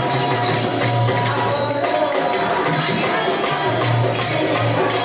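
Group of women singing a devotional bhajan into microphones, with jingling hand percussion keeping a steady beat.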